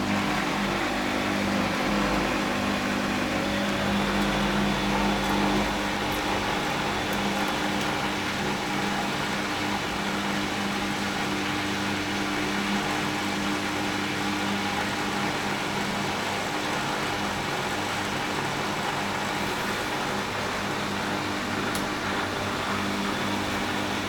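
Bosch WFL1611 washing machine spinning its drum after the prewash: a steady motor hum over the rush of the turning drum, with a low rumble for the first few seconds that then dies away.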